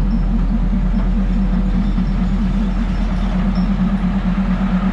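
Diesel passenger train creeping past at very close range: a steady low rumble from the engine and the wheels on the rails.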